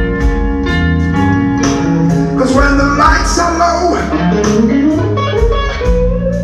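Live blues trio playing an instrumental passage: electric guitar lead over bass guitar and drums, with notes that slide and bend in pitch about halfway through.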